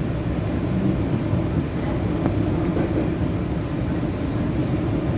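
Steady low rumble of an EP2D electric multiple unit running along the line, heard from inside the carriage.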